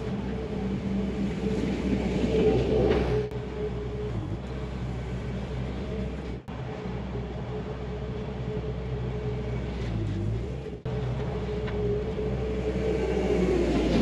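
Bobcat T300 compact track loader's diesel engine running steadily while grading a dirt trail, a low drone with a steady whine above it. It breaks off briefly a few times.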